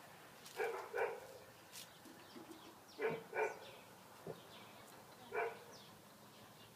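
A dog barking in short single barks, five in all: two quick pairs and then one more.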